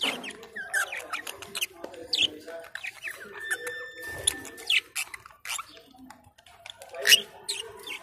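Caged budgerigars and lovebirds chirping and chattering in quick, sharp calls, with a steady high whistle-like tone for about a second midway and the loudest call about seven seconds in.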